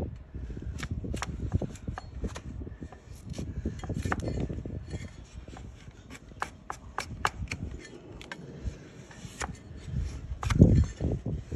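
Donkey hoof horn being pared with a large flat hoof-trimming blade pushed down against a wooden bench: a run of irregular crisp cutting and scraping strokes with sharp clicks, and one heavy thump near the end.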